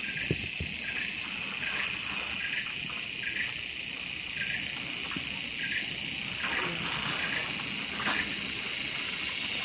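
Steady high-pitched insect chorus of tropical forest, with a short note repeating about once a second over it.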